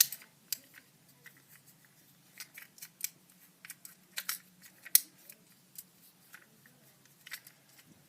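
Fidget cube being worked with the fingers: an irregular run of short, sharp clicks from its buttons and switches, roughly two a second.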